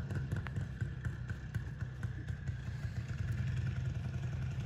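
A motor vehicle engine idling steadily with a low hum, with a few faint clicks over it.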